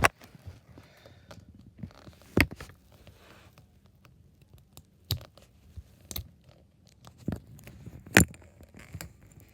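Scattered sharp clicks and taps of a small plug fuse and its plastic cover being handled and fitted back, about six in all, the loudest near the end.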